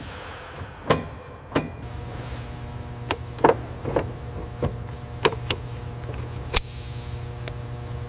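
Sharp metallic clicks and taps, about ten at irregular intervals, as metal parts are fitted by hand. Under them, a steady machine hum comes in about two seconds in.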